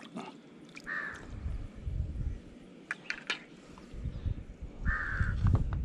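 A crow cawing twice, once about a second in and again about four seconds later, over a low rumble.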